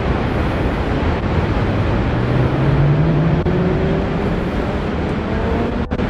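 Steady roar of the rushing Niagara River rapids, with a low engine hum that rises in pitch through the middle.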